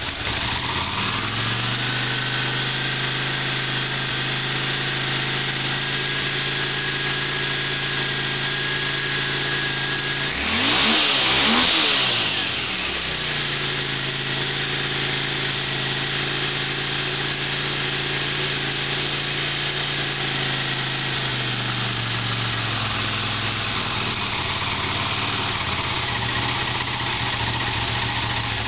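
Honda CX500 V-twin engine idling steadily on freshly rebuilt, just-installed carburetors, choke off. About ten seconds in it revs up briefly and falls back, and near the twenty-second mark the idle settles slightly lower.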